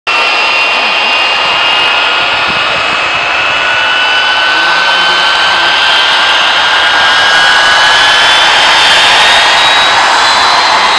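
Hawker Siddeley Nimrod's four Rolls-Royce Spey turbofans running loud on a fast taxi run: a steady jet roar with a high whine that rises slowly in pitch while the noise grows a little louder.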